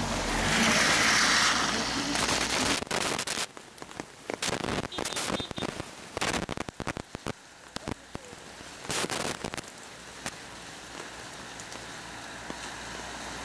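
Rain falling, with irregular sharp raindrop taps close to the microphone over a steady hiss; the hiss is loudest in the first two seconds.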